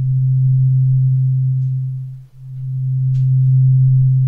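Two slightly detuned sine waves from FL Studio's 3x Osc synthesizer sound one steady low pure tone. The detuning makes them beat slowly, so the tone fades almost to nothing a bit over two seconds in and then swells back.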